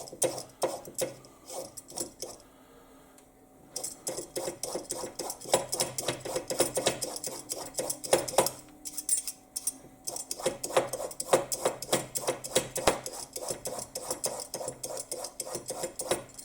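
Vegetable peeler shaving thin strips off a carrot in quick, repeated scraping strokes, with a brief pause about three seconds in.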